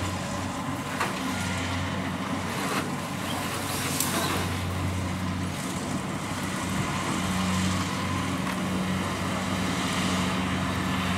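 Combine harvester's diesel engine running steadily, a continuous low hum.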